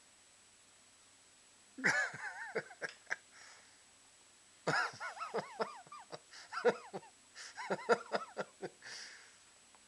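A toddler's voice making short, wavering, high-pitched sounds without words, in a brief run about two seconds in and a longer run from about five seconds in until near the end.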